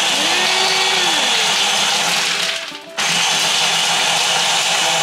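Ninja blender's press-down motor head running, blending strawberries and ice. It winds down about two and a half seconds in and starts again sharply a moment later, as the top is pressed again.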